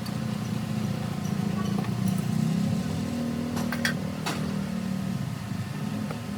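A motor running steadily with a low hum, with a few sharp clicks a little past halfway.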